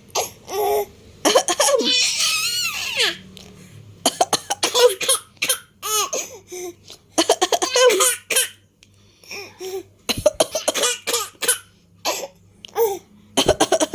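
A six-month-old baby laughing hard in high-pitched bursts, set off again and again by someone's coughs; cough and laugh follow each other over and over.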